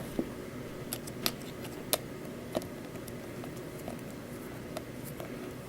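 Scattered sharp plastic clicks from a loose ShengShou 5x5 puzzle cube being handled and worked on, about half a dozen over several seconds.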